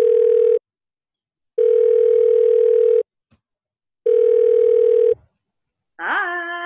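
Phone call ringback tone: a steady electronic beep about a second and a half long, repeated three times with a second's gap between beeps. The call is then answered, and a voice starts near the end.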